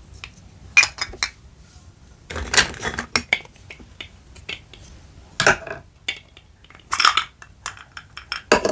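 Miniature toy kitchenware and utensils being handled: a string of small clacks, taps and clinks at irregular intervals, with a few louder clatters.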